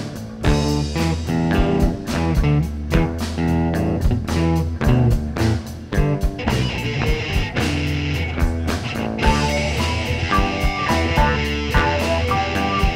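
Live rock band playing with electric guitar, bass and drum kit: a guitar riff over a steady beat, with a higher melody line coming in a little past the middle.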